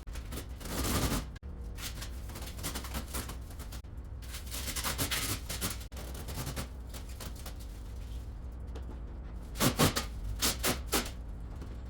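Irregular clatter and knocks of work in a workshop, over a steady low hum, with a quick run of loud sharp knocks about ten seconds in.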